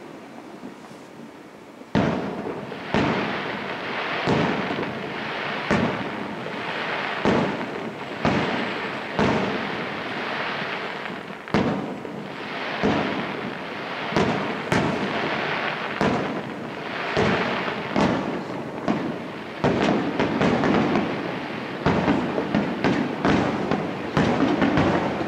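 Aerial firework shells bursting in quick succession, each a sharp bang with a long echoing rumble. After a quieter first two seconds they come about once a second, and they come thicker and overlap near the end.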